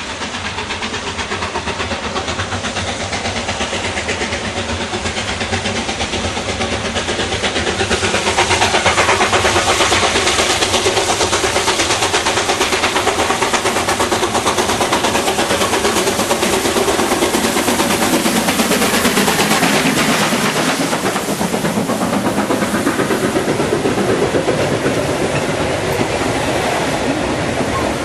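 SAR Class 15F 4-8-2 steam locomotive working hard uphill with a passenger train, its fast exhaust beats growing louder as it approaches. It passes close by about twenty seconds in, with a drop in pitch, and then the coaches roll past with wheel clatter.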